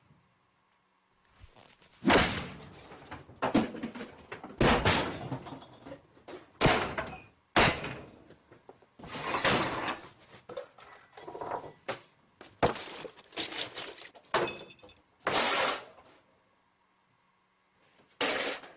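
Kitchen cupboard doors and drawers slammed shut hard over and over, a string of loud bangs and clatters with short pauses. A teenager is angrily slamming them. The bangs stop for a couple of seconds near the end, then start again.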